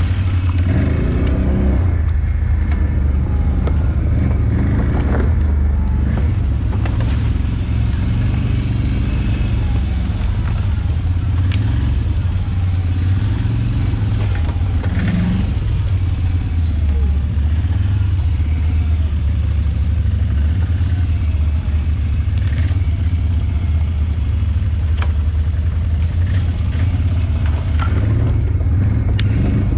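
ATV (quad) engine running steadily while riding over rough ground, its note rising and falling with the throttle, with occasional knocks and rattles.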